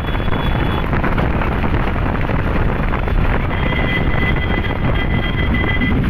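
Wind rushing over the microphone and motorcycle engines running, heard while riding at speed. A faint, thin, steady high tone joins about halfway through.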